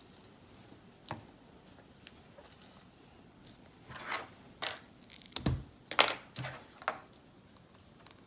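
Small hard-plastic toy parts handled and pressed together: scattered light clicks and short rustles, busiest in the second half, with a soft low thump in the middle of that cluster.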